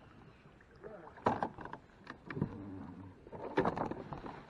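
Sounds of a kayak being handled on the water: sharp knocks against the hull, one about a second in and another near the end.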